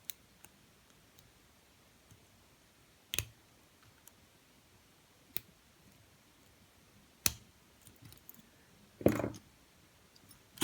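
A metal lock pick clicking against the pins of a Eurospec MP10 half-euro cylinder padlock during single pin picking, in sparse single clicks a couple of seconds apart. About nine seconds in there is a longer scrape, and at the end a sharp click as the lock is picked open.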